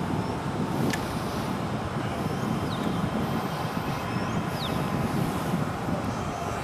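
Steady low rumble of city traffic, with a few faint, short high chirps and one faint click.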